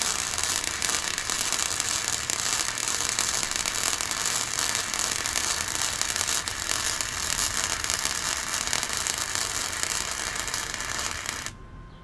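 Flux-core arc welding with a Harbor Freight Titanium Flux 125 welder and 0.030 wire, laying a continuous bead on steel exhaust pipe. A steady, dense crackle and sizzle that cuts off suddenly near the end.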